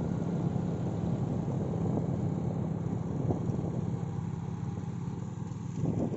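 A small engine running steadily, with a low hum and wind rushing on the microphone.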